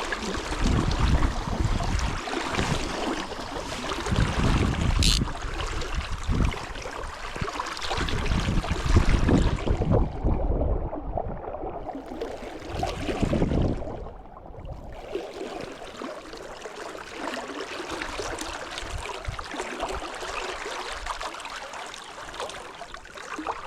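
Rushing river water with gusts of wind buffeting the microphone; the wind rumble is heaviest in the first half, then eases to a steadier wash of water.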